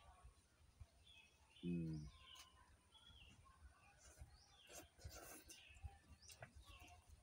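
Faint slurping of instant noodles by a man eating, with a short hummed "mm" about two seconds in. Soft bird chirps sound in the background.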